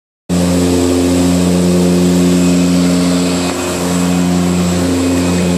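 Cabin noise of a de Havilland Canada DHC-6 Twin Otter in flight: its Pratt & Whitney PT6A turboprops and propellers make a loud, steady low hum with a thin high whine above it.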